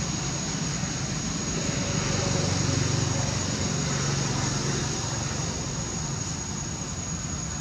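A steady low engine hum with a constant high-pitched whine above it.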